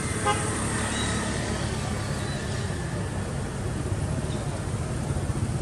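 Steady low engine rumble of a motor vehicle.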